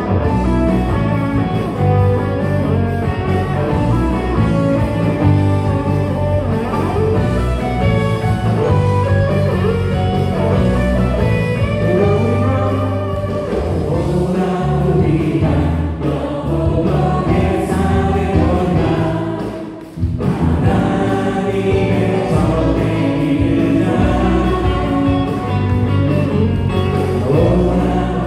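Live church worship band playing a gospel praise song: keyboard, bass guitar and drums under group singing. The music dips for a moment about two-thirds of the way through, then carries on.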